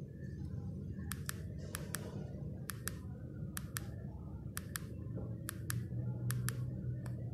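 Keypad of a Nokia 1280 mobile phone clicking as its navigation key is pressed over and over, scrolling through the menus. Each press is a quick double click, about once a second.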